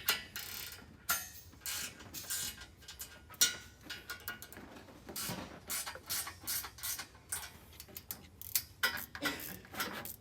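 Hand ratchet clicking in short irregular runs, with metal clinks of tools, as header bolts are snugged down.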